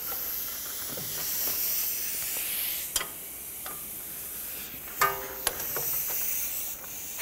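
A hand ratchet works the nut on the strut-to-knuckle bolt, with a light metallic hiss and ticking and a sharp click about three seconds in. Around five seconds there is a short buzz and a couple of clicks as a power ratchet is fitted onto the nut.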